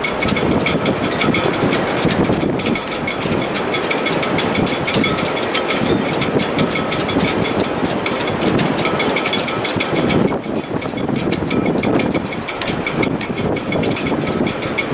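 Strong wind in a sailboat's shrouds and rigging in heavy weather: a steady rushing noise with a faint, high, steady whistle through it.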